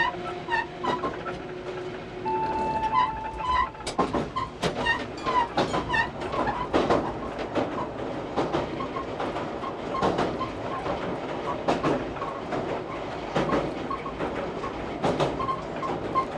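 Electric train running, heard from the cab, its wheels clicking over rail joints. About four seconds in, the clatter grows heavier and denser as the train runs onto a steel truss bridge.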